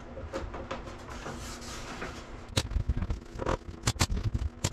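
Hand-held nail gun firing brads into a wooden trim band, a few sharp shots in the second half, the last ones close together.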